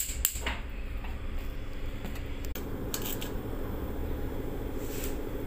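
Gas stove burner being lit: the spark igniter clicks a couple more times as the burner catches, then the flame gives a steady low rush. A few light clicks come near the middle and near the end.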